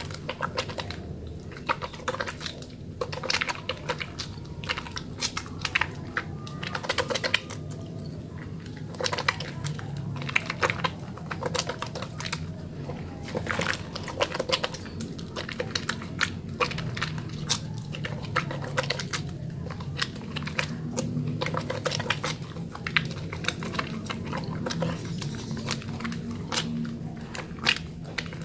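A wet mini bar of Holly soap being rubbed and lathered in the hands, giving a dense, irregular run of wet clicks and crackles.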